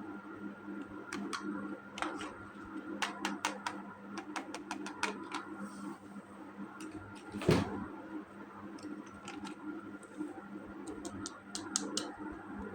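Plastic toy parts and packaging being handled: scattered sharp clicks and taps, with one louder knock about seven and a half seconds in.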